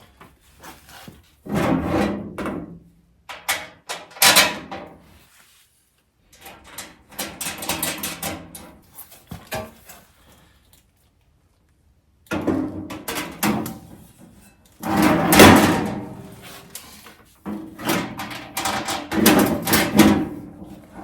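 Powder-coated steel welding-cart panels and hardware being handled and fitted together: bursts of metal clanking, knocking and rattling, some knocks ringing briefly. The bursts are separated by several short stretches of dead silence.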